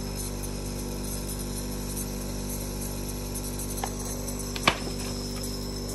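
Nebulizer air compressor running with a steady mechanical hum. There is a sharp click about three-quarters of the way through.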